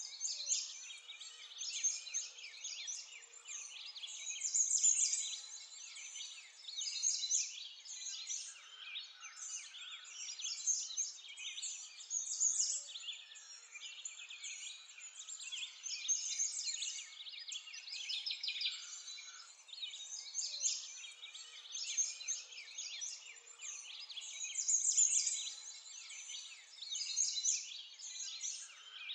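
Many small birds chirping and twittering together in a continuous high-pitched chorus that swells and fades every few seconds.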